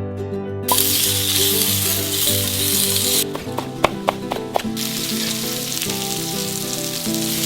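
Food sizzling in a hot frying pan, with a short break about three seconds in that holds a few sharp clicks, then sizzling again.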